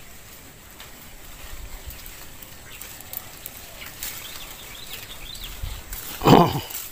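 Faint bird chirps over quiet outdoor background, then a single short, loud, rough burst a little after six seconds in.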